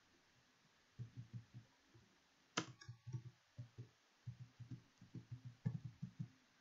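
Typing on a computer keyboard: a quick run of dull keystroke taps, with one sharper click about two and a half seconds in.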